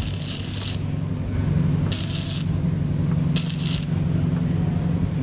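Welder striking short tack welds on a cracked exhaust weld: four brief crackling bursts about half a second each, over a steady low hum.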